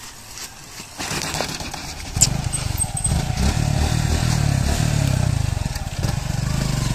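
Suzuki Gixxer SF 150's single-cylinder engine catching on a push start about two seconds in, with a sharp click, then running steadily. It has to be bump-started because the self-starter no longer works on its failing battery.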